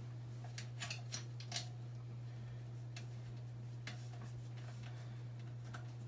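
Scattered faint clicks and taps as a nut is threaded by hand onto a mounting bolt of an air compressor's feet, over a steady low hum.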